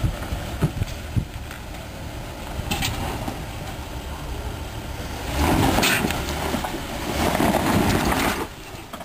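Jeep Wrangler Rubicon's engine running at low speed as it crawls over a rock ledge, with a few sharp knocks near the start and two stretches of louder rushing noise in the second half.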